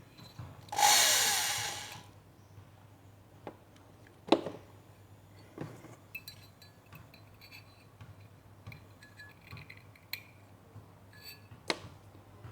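Small hand work on a Zippo lighter's metal flint tube: a second-long scrape about a second in, then a few sharp clicks and small metallic clinks as the tube is scraped out and the flint spring tried in it, to clear old flint that has hardened inside.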